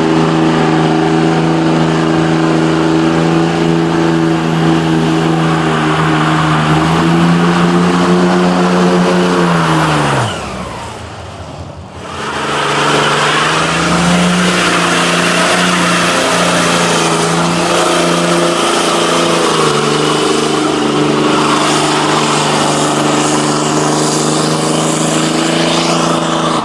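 V8 muscle car doing a burnout: the engine is held at high, steady revs with the rear tyres spinning. About ten seconds in the revs drop away and the sound dips for a couple of seconds, then the engine climbs back up and holds high again, easing down slightly near the end.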